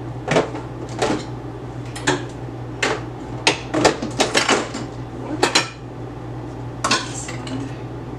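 Bottles and containers knocking and clinking as they are lifted out of a refrigerator and set down, a dozen or so sharp, separate clacks with a short pause near the end.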